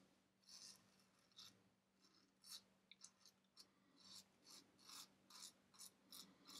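Muhle R41 safety razor with a Feather blade scraping through lathered stubble in short strokes. The faint scratchy rasps come scattered at first, then two or three a second toward the end.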